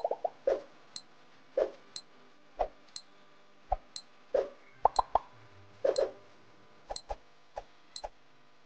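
Countdown timer sound effect: a short high tick about once a second, with lower, irregular pops in between.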